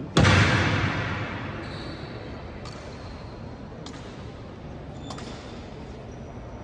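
A single loud impact from the honor guard's drill on the stone floor, ringing out in a long echo through the marble hall. Three faint sharp clicks follow, each a second or so apart.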